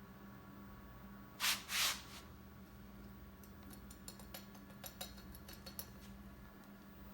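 Two short scraping rushes, then a scatter of light clicks and ticks, over a faint steady hum: sand-casting work around the mold and crucible as molten brass is poured.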